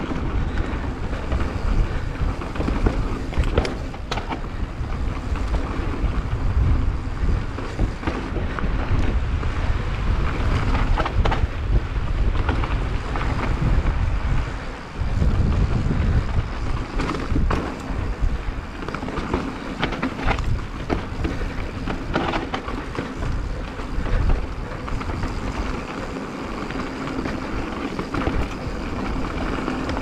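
Wind rumbling over a GoPro Hero 8's microphone as a mountain bike descends a dirt forest trail, with tyres rolling over dirt and stones and frequent knocks and rattles from the bike over bumps. The rumble dips briefly about halfway through.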